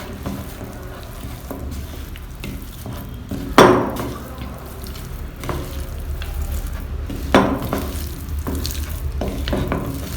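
Raw chicken pieces being mixed with a cornflour and spice marinade in a bowl: wet stirring and scraping, with a louder knock against the bowl about three and a half seconds in and again about seven and a half seconds in.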